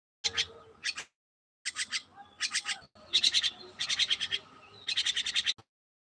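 A myna calling close by in four runs of rapid chattering notes with short pauses between them. The last run cuts off abruptly near the end.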